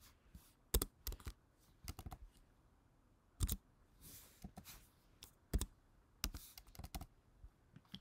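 Computer keyboard keys being typed, a few sharp clicks at a time in short irregular runs with gaps between.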